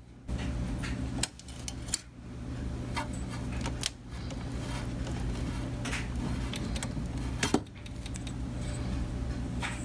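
Glass vacuum tubes being rocked and pulled from their sockets in a Roberts 1725 reel-to-reel's chassis: scattered small clicks and clinks of glass and metal pins over a steady low rumble.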